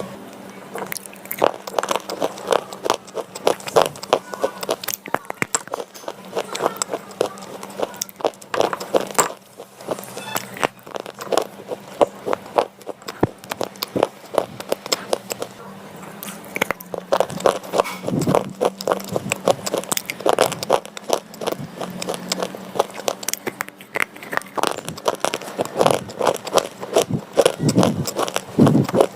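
Slate pencils being bitten and chewed: a steady run of sharp, dry crunches and gritty chewing.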